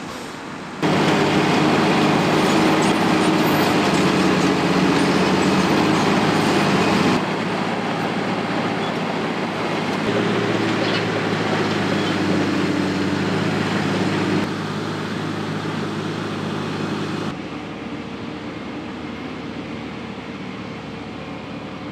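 Heavy diesel earthmoving machinery running and working: the steady run of big diesel engines under a dense rumble of material being handled, with gravel pouring from a bucket. The sound changes abruptly several times, about one, seven, fourteen and seventeen seconds in, and is loudest between about one and seven seconds in.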